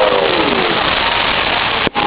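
A large fireworks crowd over a dense, steady crackling hiss of the display, with drawn-out voices gliding down in pitch in the first half second or so.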